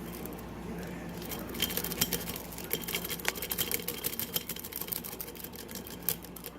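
Metal lock pick working the pins in the keyway of a Defiant (Kwikset-clone) pin-tumbler lock: a rapid run of small metallic clicks and scrapes that starts about a second and a half in and stops near the end, over a faint steady hum.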